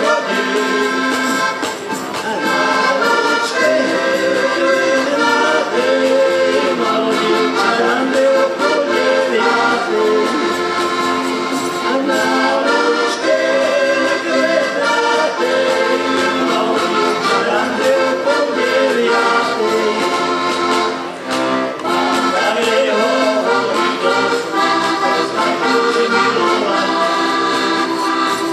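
Slovak diatonic button accordions (heligónky) playing a lively traditional folk tune together, dipping briefly about two-thirds through.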